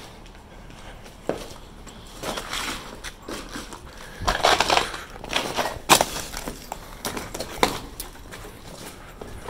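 Irregular footsteps scuffing and stepping over debris, with several louder scrapes and one sharp knock about six seconds in.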